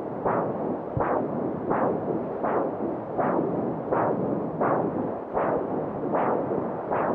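Fetal Doppler picking up the mother's own arterial blood flow: a rushing noise that pulses regularly, about four beats every three seconds, at the pace of her heartbeat.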